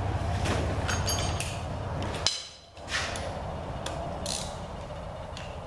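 Socket ratchet clicking in short strokes as rusted bolts are worked loose on a Ford 302 V8, with brief metallic squeaks about a second in and again a little after two seconds.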